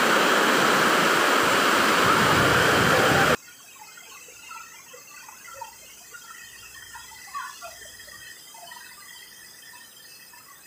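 Loud rushing of whitewater pouring down a waterfall cascade, cut off abruptly about three seconds in. After it the sound is much quieter, with faint, short chirps scattered through it.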